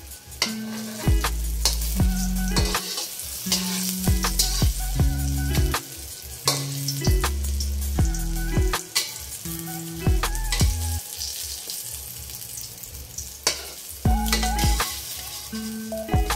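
Eggplant omelettes sizzling in hot oil in a wok, over background music with a steady beat.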